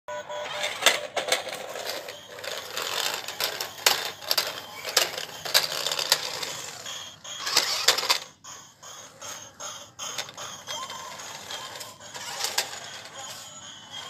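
Small plastic remote-control stunt car running on concrete: its toy gear motors whir and rattle, with repeated sharp clicks and knocks from the plastic body and wheels as it spins. The sound drops away briefly just after the middle, then picks up again.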